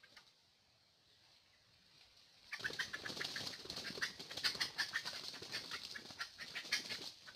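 A junglefowl beating its wings in a rapid flurry, starting about two and a half seconds in and lasting about five seconds.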